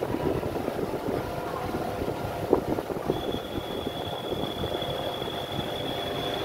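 Wind on the microphone over the low, steady rumble of a Star Ferry under way across the harbour. A sharp knock sounds about two and a half seconds in, and a thin, steady high whine starts about three seconds in.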